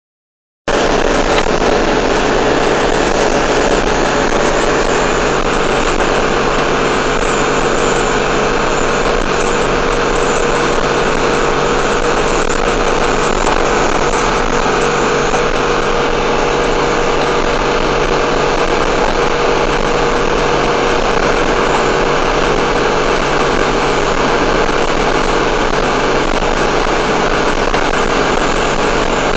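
Engine and road noise inside a truck cab cruising at steady highway speed: a loud, even drone with a constant hum, starting just under a second in.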